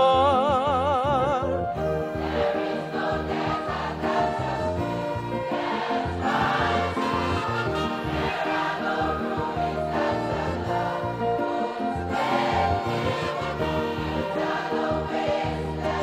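Gospel choir with a live orchestra of violins and winds. A male soloist holds the last word of the line with a wide vibrato for about a second and a half, then the choir and orchestra carry on with sustained chords.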